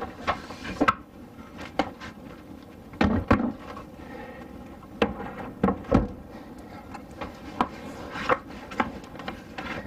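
Irregular knocks, clunks and rubbing from a dinette table and its telescoping stand being handled and adjusted for height, with two louder thuds about three and six seconds in.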